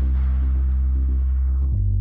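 Background electronic music: a deep, sustained bass note under a held chord that shifts about two seconds in.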